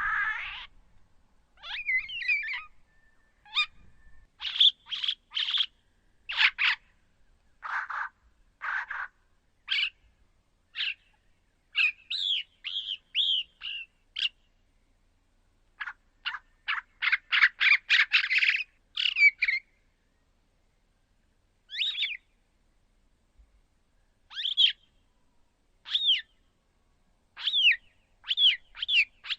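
Edited red-backed shrike and bearded reedling calls forming a speculative dinosaur call: short, harsh chirps and squawks in irregular bouts with silent gaps. About halfway through comes a fast run of a dozen or so rapid notes, and near the end several sharp notes that sweep down in pitch.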